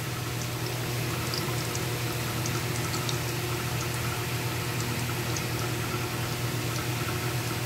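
Potato-filled maida pastry patties deep-frying in hot oil in a kadhai: a steady sizzle with scattered small pops, over a steady low hum.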